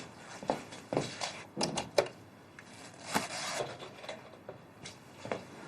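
Scattered light knocks and clicks with some rustling, the sound of someone moving about and handling things in a small room.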